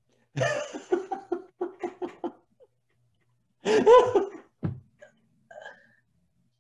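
Laughter: a run of quick, rhythmic ha-ha pulses for about two seconds, then a louder laughing burst about four seconds in, trailing off into a few soft traces.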